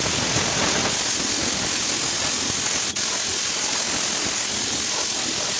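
Compressed-air gravity-feed spray gun hissing steadily as it sprays a thick KPO stone-chip coating, with a brief break about three seconds in.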